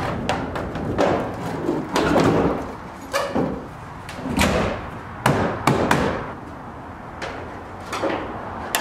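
Irregular knocks, thumps and clatter of a drift car's body panels being handled and fitted back on, along with a car door being opened and shut.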